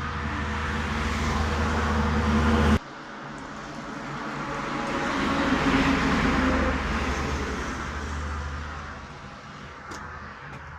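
Road vehicle noise: an engine runs with traffic noise and cuts off abruptly about three seconds in. Then another vehicle's noise swells and fades away, like a vehicle passing.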